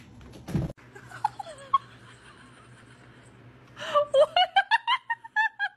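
A person laughing in rapid, high-pitched bursts, starting about four seconds in; earlier there is a single thump about half a second in.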